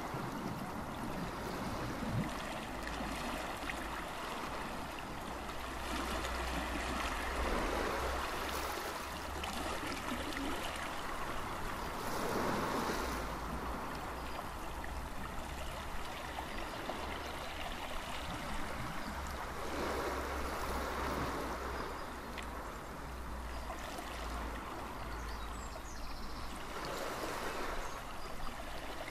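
Sea water washing over a shingle beach, the hiss swelling and falling back every few seconds like small waves surging in, over a steady low rumble.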